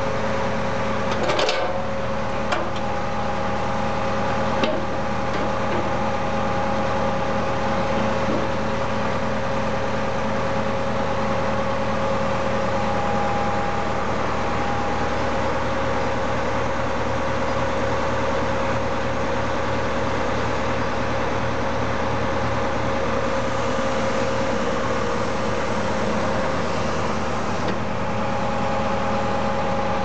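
Tractor engine running steadily, powering the hydraulics of a tractor-mounted Foster D2 backhoe as its boom and bucket are worked, with a steady whine over the engine. A few sharp clanks in the first five seconds.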